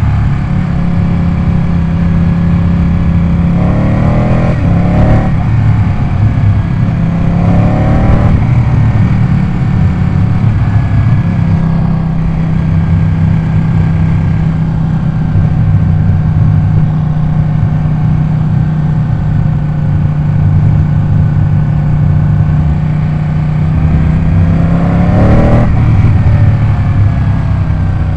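Ducati 899 Panigale's Superquadro V-twin engine running at a steady, even pitch, with brief rises in revs about four seconds in, about eight seconds in, and again near the end.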